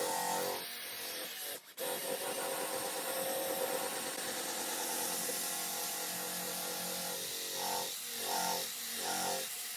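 Electric drill running with a polishing pad, buffing a plastic headlight lens with G3 rubbing compound. It is a steady whirring rub, broken off briefly under two seconds in.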